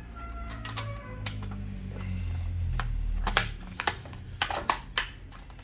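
Sharp plastic clicks and knocks, about half a dozen, as a laptop's bottom cover panel is set back and pressed into place, over a steady low hum.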